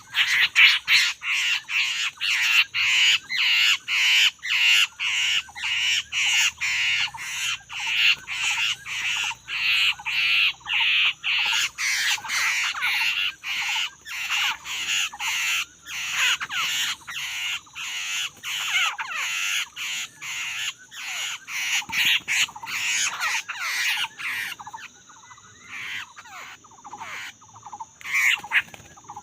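Laughingthrush calling loudly in a long series of harsh, chattering calls, about two a second, which become sparser near the end.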